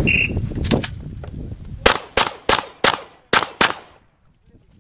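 A short electronic shot-timer start beep, then a rapid string of about eight shotgun shots, roughly three a second, each with a short echo, stopping about a second before the end.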